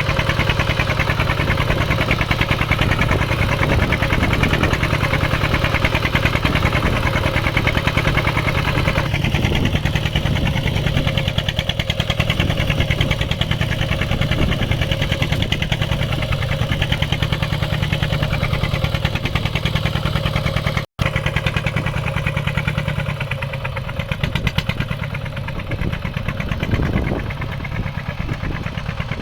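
Mini farm tractor's engine running steadily with a fast, even firing rhythm while plowing. It cuts out for an instant about two-thirds of the way in, then comes back a little quieter and less even.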